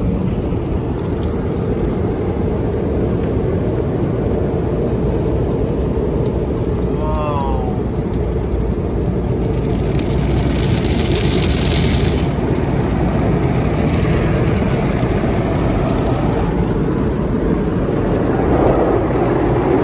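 Automatic tunnel car wash heard from inside the car: a steady low rumble and swish of spinning cloth brushes and water spray washing over the body and glass. A hiss of spray rises for a couple of seconds about halfway through.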